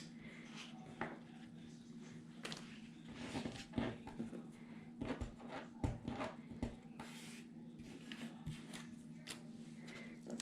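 Faint rustling and light taps of paper pieces and stickers being handled, with scattered small clicks, over a steady low hum.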